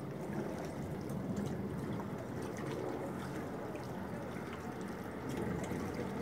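Small waves lapping against the tubes of an inflatable boat, with a few faint ticks.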